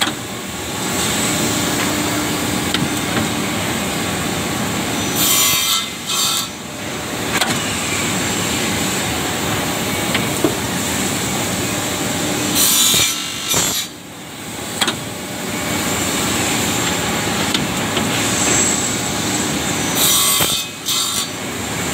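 Automatic wooden corner-brace (triangle block) cutting machine sawing through board stock: a steady sawing noise, broken three times, about seven seconds apart, by short loud hisses as the air-driven clamps work.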